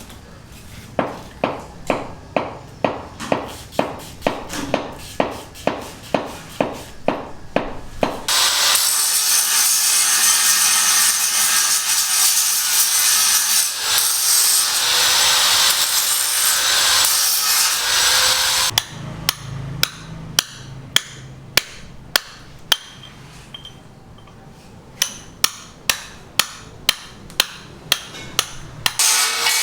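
Hand hammer blows striking at roughly three a second, cut abruptly to several seconds of steady cutting noise, then more hammer blows, scattered at first and then regular again.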